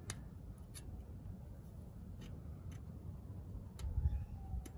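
A handful of light, sharp clicks and faint scraping as a threaded steel stud is turned by hand in the Watts link stud hole of the rear axle housing, over a low rumble that swells about four seconds in.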